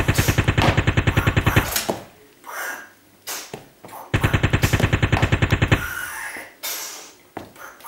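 Imitation machine-gun fire: two bursts of rapid shots, about eight a second, the first lasting about two seconds and the second starting about four seconds in and lasting about two and a half seconds.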